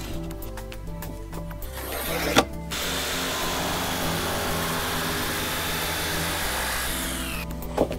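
Black & Decker jigsaw cutting through a plywood board for about five seconds, starting after a sharp click a little over two seconds in and winding down in pitch near the end, over background music.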